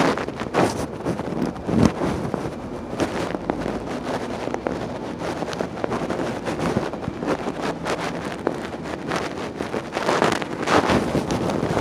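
Wind and rustling noise on a handheld phone's microphone as it is carried along, with scattered short knocks.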